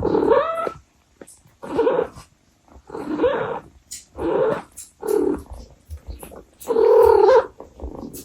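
Abyssinian mother cat meowing to her kittens: six short meows in a row, with the last one, near the end, longer and louder.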